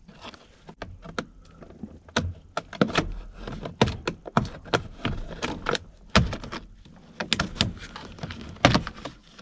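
Steering column cover being pried open with a flathead screwdriver: a run of irregular sharp clicks, snaps and knocks.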